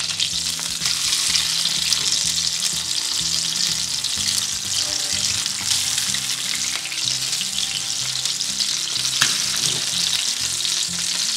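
Masala-marinated kingfish steaks sizzling in hot oil in a nonstick skillet over medium heat, a steady frying hiss, as the steaks are turned over with a slotted fish turner. A brief click about nine seconds in.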